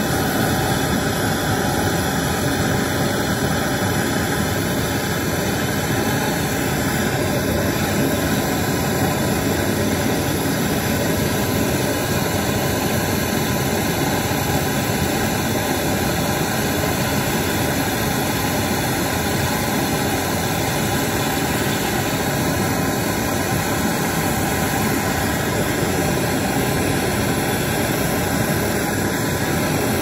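Gas brazing torch burning with a steady hiss while a copper filter-drier joint on a refrigerator's refrigerant line is heated and brazed.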